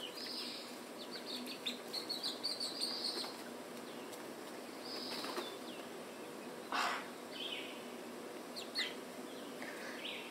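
Young chickens peeping in short high chirps, a quick run of them between about one and three seconds in, with a brief flurry of wing flaps near seven seconds in.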